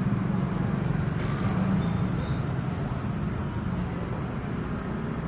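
A steady low mechanical rumble, easing slightly about two seconds in.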